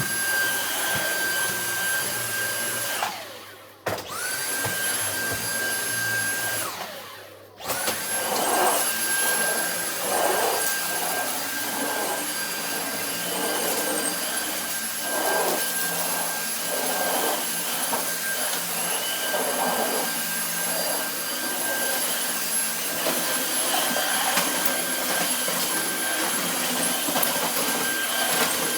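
Cordless Dyson stick vacuum running with its high motor whine. It winds down and cuts out twice in the first several seconds and starts straight back up each time, a faltering that the user puts down to the battery running low. Irregular rattling follows as it picks up debris.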